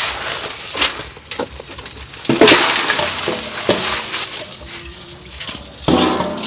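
Ice and small crabs clattering and splashing in a steel basin of water as they are scooped and rinsed with a plastic basket, with sharp clicks and knocks. Near the end a large steel basin is handled, with a louder ringing scrape.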